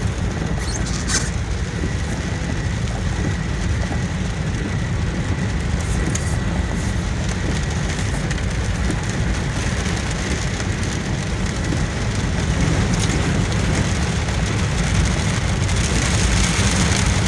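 A vehicle running steadily: an even low rumble under a constant noisy hiss.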